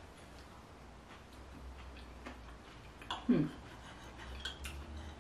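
Mostly quiet, with faint clicks of a knife and fork against a ceramic plate and a brief hum of the voice, falling in pitch, about three seconds in.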